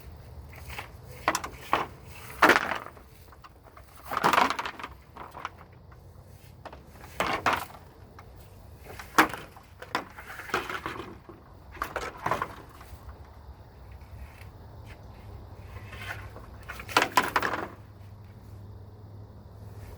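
Sticks and branches being handled and set in place: about a dozen irregular wooden knocks, clatters and short scrapes, with pauses of a second or more between them.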